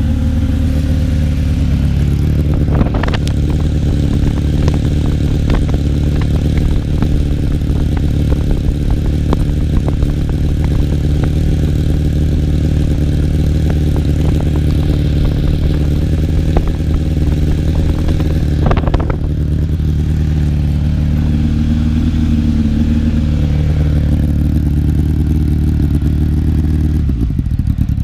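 Suzuki Bandit's inline-four engine running loud through a short stubby exhaust, idling at an even speed. The steady note breaks up just before the end.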